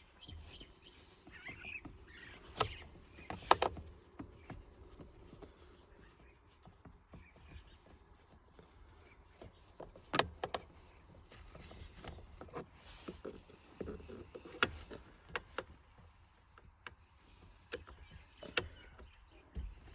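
Scattered light clicks and knocks of hand tools and plastic trim being handled, as a screwdriver goes at the screws of a pickup's steering column cover.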